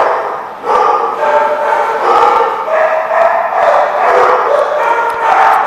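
Dogs barking and yipping in play, an almost unbroken run of barks and yips.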